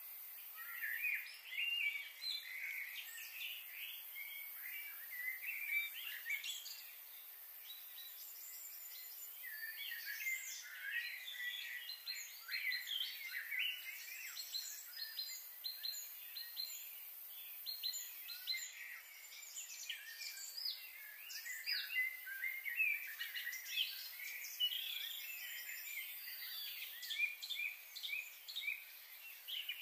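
Wild birds chirping and calling in quick, overlapping short notes, a busy chorus with a brief lull about a quarter of the way in.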